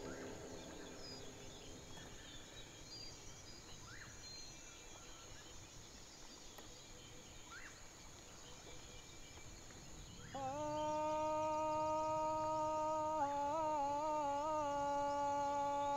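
Faint outdoor ambience with a few brief chirps, then about ten seconds in a man's voice starts a long, held sung call on one steady note. A few seconds later it wavers in a quick ornament, then settles back on the held note.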